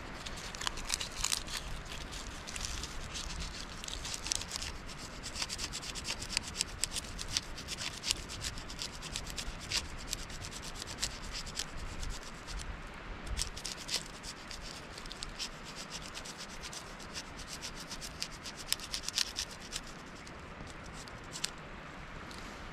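Small wood campfire crackling and snapping as it catches, with dense irregular pops over a rough hiss.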